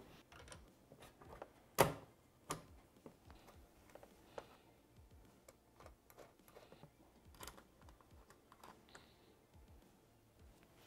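Faint, scattered clicks and taps of small bolt hardware being fitted by hand, with metal washer plates, bolts and nuts knocking against a polycarbonate window panel and its mounts. The sharpest tap comes about two seconds in.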